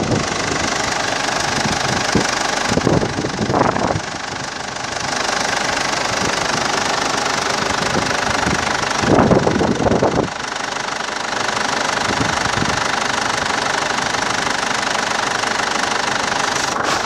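A Mazda BT-50's 3.0-litre four-cylinder turbo diesel running steadily at idle, with a couple of short louder rushes about three and nine seconds in.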